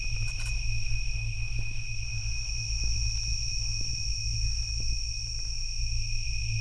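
Ambient electronic drone: two steady high tones held over a low hum, with a few faint ticks.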